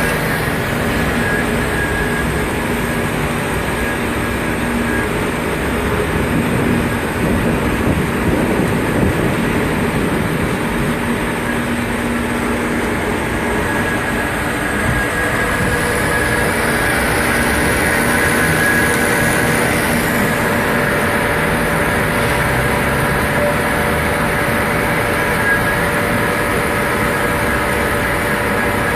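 Amada CRA-300 metal-cutting band saw running steadily under test: a continuous machine hum carrying several steady tones.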